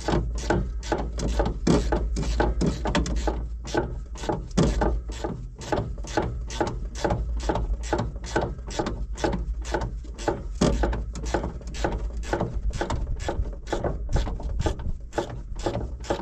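Hand ratchet wrench clicking steadily at about four clicks a second, loosening a fastener on a tractor's fan shroud, over a low steady rumble.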